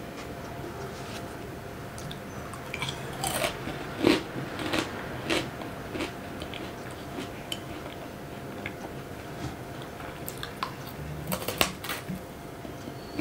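Crisp, oven-dried meringue crunching, a scatter of dry crackles in two bouts, like a brittle meringue being bitten and chewed.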